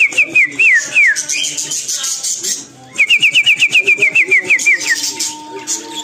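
A high whistled trill: rapid, evenly repeated notes, about eight a second, in two runs, the first ending about a second in and the second lasting from about three to five seconds in, each closing with a few slower falling notes. Budgerigars chirp beneath it.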